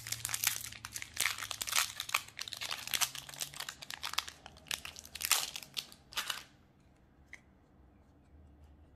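Foil Magic: The Gathering booster pack wrapper crinkling as it is torn open and crumpled by hand. The crinkling stops about six and a half seconds in, and one faint click follows.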